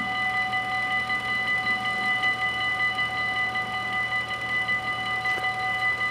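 Electronic warning bells of a Dutch automatic half-barrier level crossing ringing in a rapid, even rhythm, several bells at once, signalling that a train is coming.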